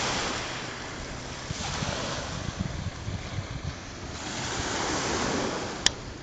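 Small sea waves washing onto a pebble beach and breaking against rocks, swelling louder for a moment about five seconds in, with wind rumbling on the microphone. A single sharp click near the end.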